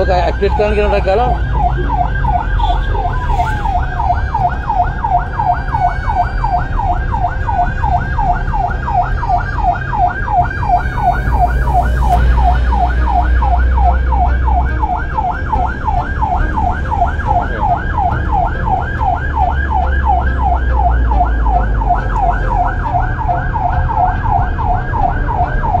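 Ambulance siren in a fast yelp, its tone sweeping rapidly up and down without a break, heard from inside the vehicle's cab over the steady rumble of the engine and road.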